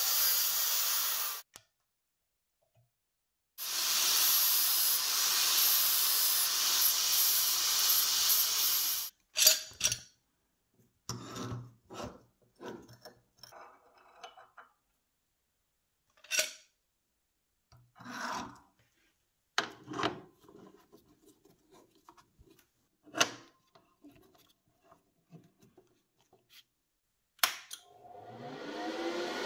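Angle grinder cutting sheet steel clamped in a vise, in two stretches. Then scattered clinks and knocks of the cut steel pieces being handled and set down. Near the end, a click as a stick (electrode) welder is switched on, and its cooling fan spins up with a rising hum.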